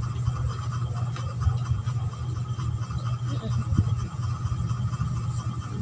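A person chewing food, with soft, scattered mouth noises over a steady low hum.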